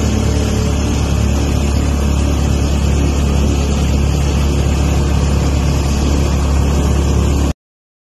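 Steady engine and road noise from inside a moving open-sided passenger vehicle, with a deep rumble. It cuts off suddenly about seven and a half seconds in.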